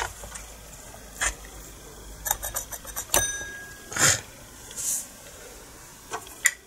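Scattered metal clicks, clinks and scrapes as the chainsaw's clutch drum is worked onto the crankshaft, trying to catch the oil-pump drive pin. One sharper clink a little past three seconds in rings briefly.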